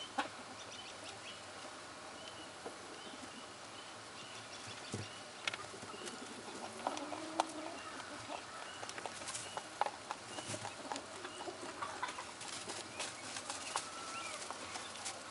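Birds at a pond carrying on, with faint calls now and then. Rustling and ticking in the hay bedding as the rabbit kits move, busier in the second half.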